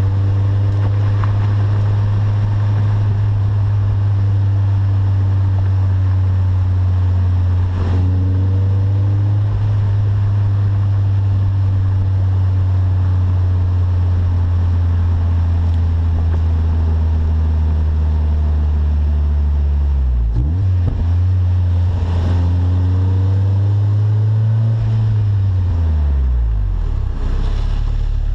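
Exhaust note of a Toyota MR2 AW11's four-cylinder engine, heard right at the tailpipe while driving, through a 2-inch mandrel-bent pipe, a Magnaflow 14210 muffler and a resonated tip. The engine pitch climbs, breaks at a shift about eight seconds in, drops around twenty seconds in, then rises again and falls off near the end.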